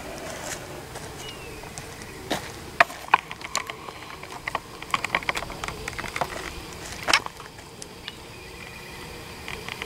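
Wooden bottom board of a honeybee hive box being pulled out and handled: a scattered run of sharp wooden knocks and clicks, loudest about three and seven seconds in, with honeybees buzzing faintly.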